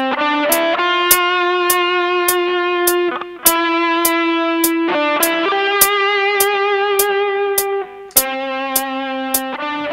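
Electric guitar playing a slow solo of long sustained notes with vibrato, harmonized a third apart by a second guitar line recorded on a looper. A steady click keeps time a bit under twice a second, and the notes break off briefly about eight seconds in.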